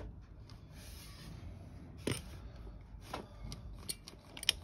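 A few faint clicks and rubbing sounds over a low hum, the sharpest about four and a half seconds in; the Suzuki Hayabusa neither cranks nor runs, because its alarm is still armed.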